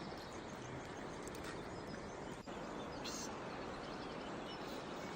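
Steady outdoor background noise with faint bird chirps, and a short hiss about three seconds in.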